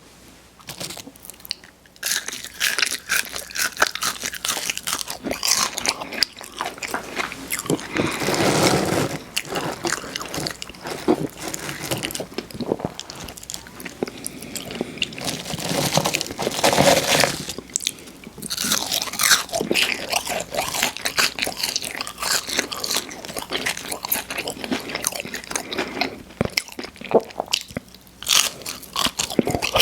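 Close-miked eating of crunchy fast food: big bites and chewing, with a dense run of wet, crackly mouth sounds and louder stretches about eight and sixteen seconds in.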